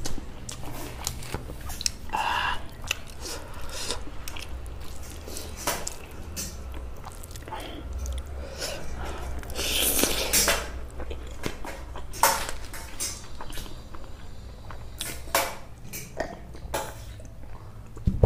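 Eating rice and curry by hand from a stainless steel plate: fingers scraping and mixing food on the metal, with chewing and mouth sounds. Scattered short clicks and scrapes throughout, and a louder noisy burst about ten seconds in as a handful goes to the mouth.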